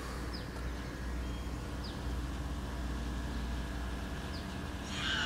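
Outdoor ambience: a steady low rumble with a few short, high, falling bird chirps spread through it, and a brief louder noisy sound near the end.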